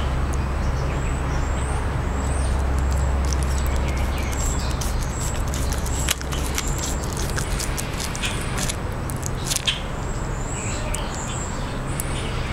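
Green iguana biting and tearing collard leaves, with a few crisp crunches about halfway through. Underneath runs a steady low rumble of traffic, and small birds chirp high and briefly near the start and near the end.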